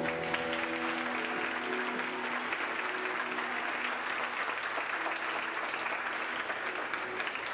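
Audience applauding, a dense steady clatter of clapping. The last held notes of the show music fade out under it over the first few seconds.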